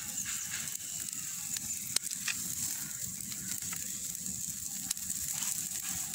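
Marinated chicken pieces sizzling on a wire grill over an open wood fire, with the fire crackling and two sharper pops, about two seconds in and about five seconds in.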